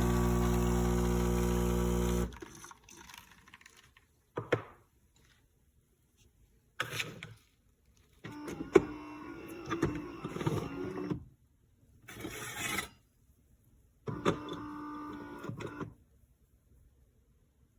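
Philips 4300 Series espresso machine's pump running with a steady hum that stops abruptly about two seconds in. Several short separate noisy bursts follow.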